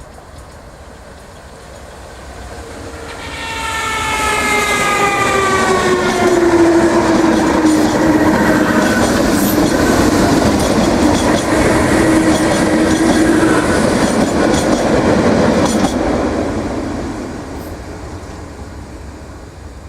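An 8100 class DART electric multiple unit passes close by. A whine drops in pitch as it nears and then holds steady, under wheels clicking over the rail joints. The sound builds from about three seconds in, is loudest through the middle and fades near the end.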